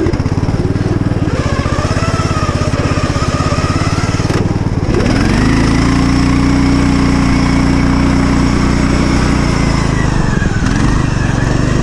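Engine-swapped Poulan riding lawn mower engine running under load while it is driven through snow. About four and a half seconds in it drops off briefly, then revs up and holds a steady higher pitch, eases off again, and picks up near the end.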